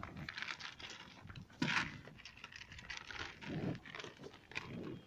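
A ram eating feed from a plastic tub: crunching and rustling with scattered sharp clicks, the loudest burst about a second and a half in.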